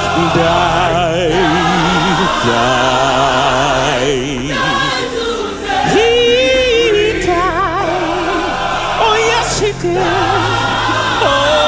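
Live gospel music: a choir singing sustained, melismatic lines with heavy vibrato over band accompaniment.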